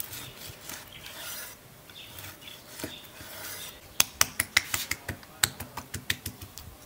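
Chef's knife slicing through a seared grilled steak on a wooden cutting board: a soft rasping as the blade saws through the crust, then from about four seconds in a quick run of sharp clicks, roughly four a second, as the blade strikes the board.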